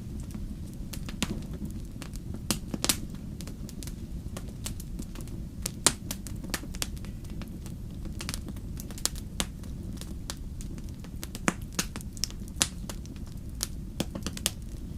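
Wood fire crackling in a fireplace: sharp pops at irregular intervals, a few louder than the rest, over a steady low rumble of the flames.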